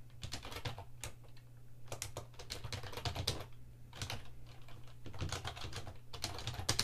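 Typing on a computer keyboard: quick runs of key clicks separated by short pauses, over a steady low hum.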